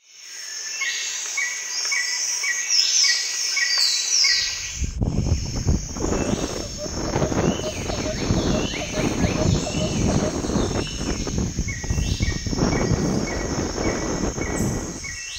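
Birds calling and insects chirping in a steady rhythm. About four seconds in, wind starts rumbling on the microphone and covers them.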